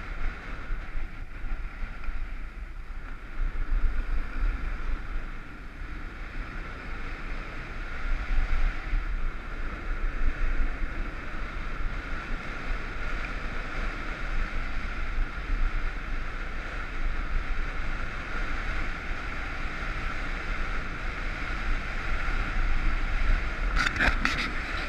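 Wind buffeting the camera's microphone during a fast ski descent, with the steady hiss of skis sliding over packed, groomed snow. A few sharp clicks near the end.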